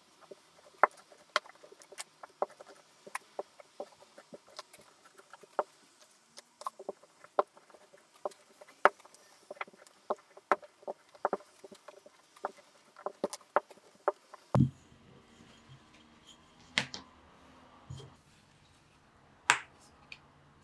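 Wooden rolling pin rolling out dough on a plastic board: a run of irregular light clicks and taps, several a second. About two thirds of the way through these stop, and a few separate louder knocks follow.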